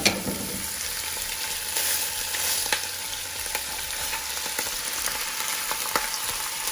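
Block of beef mince sizzling in hot olive oil in a stainless steel pot: a steady hiss with a few sharp pops and crackles.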